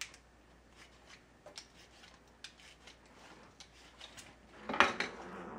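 A Y-shaped vegetable peeler scraping the skin off a raw beet in quick, faint strokes, with a louder handling noise about five seconds in.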